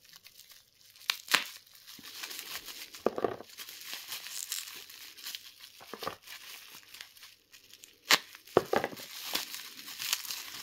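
Bubble wrap crinkling and tearing as it is cut with a knife and pulled open by hand, with a few sharp clicks, the loudest about a second in and about eight seconds in.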